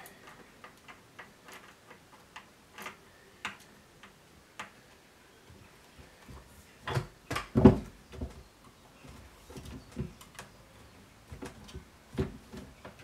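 Scattered small clicks and knocks of a new chainsaw being handled and turned over on a wooden workbench, with a few louder knocks about seven to eight seconds in.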